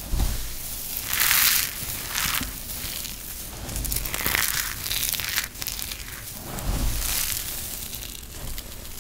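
Hands crushing and rubbing crispy, crumbled dry soap from broken soap balls, a dry crunching and crumbling that comes in several surges as the fingers squeeze and work through the pile.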